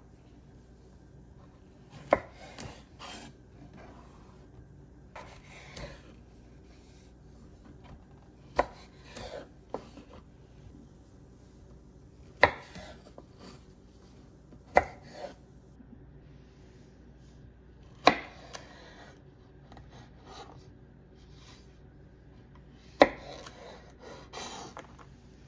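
Kitchen knife cutting through a thick aloe vera leaf on a wooden cutting board. About six sharp knocks come a few seconds apart as the blade hits the board, each followed by short slicing and rubbing sounds.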